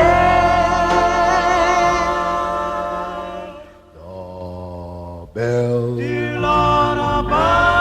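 Vocal group song: a voice holds a long note with vibrato over sustained harmony, fading out about three and a half seconds in. After a soft lull the group comes back in full, in close harmony, a little after five seconds.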